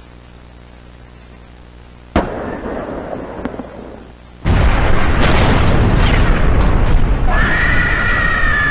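Sound effects of a monster attack: a low hum broken about two seconds in by a sharp bang, then a loud explosion-like rumble from about four and a half seconds on. Near the end a creature's roar, an edited Godzilla roar, rises over it as a high cry that falls slightly in pitch.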